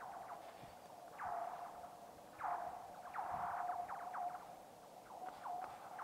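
45 mm thick new black ice on a lake singing: a run of quick, high, laser-like chirps, each falling in pitch and trailing into a lingering ringing tone, repeating every second or so.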